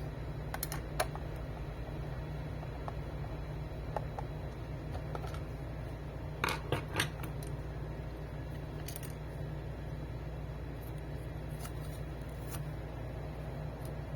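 Scattered small clicks and taps from opening and handling a printer's power supply unit by hand, with a quick run of three louder clicks about six and a half seconds in, over a steady low hum.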